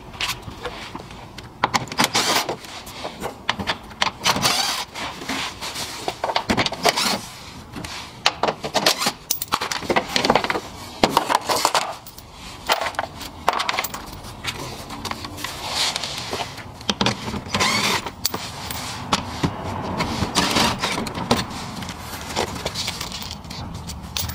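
Irregular metallic clicks and clinks of a socket wrench and small screws as the 8 mm screws holding a car's plastic under-engine splash shield are taken out, with the shield knocking and rattling.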